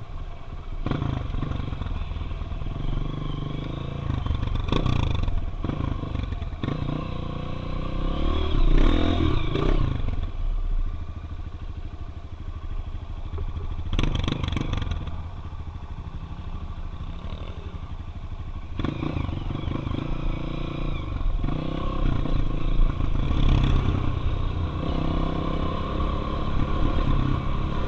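Single-cylinder four-stroke dirt bike engine running while ridden along a dirt road, revving up and easing off several times.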